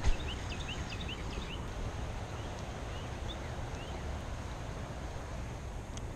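Birds chirping in short, quick high notes, a fast run of them in the first second or so and then scattered ones, over a steady low rumble.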